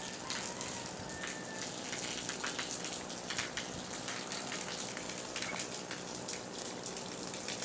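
Steady rain falling, an even hiss with many close drops ticking and pattering on surfaces.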